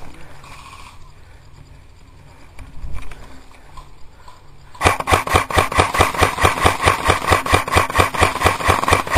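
Airsoft rifle firing one long full-auto burst, starting about halfway in: a rapid, even rattle of shots over a steady whine, lasting close to five seconds.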